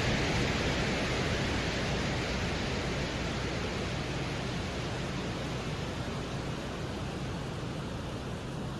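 Steady, even rushing noise with no distinct events, slowly fading. It is played as the sound recorded by the Soviet Venera 13 lander on the surface of Venus.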